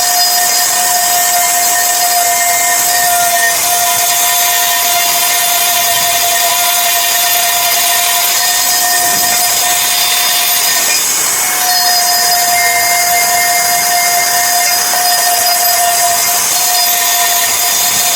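A power tool running steadily with a constant whine over a hiss; the whine briefly drops out about eleven seconds in, then returns.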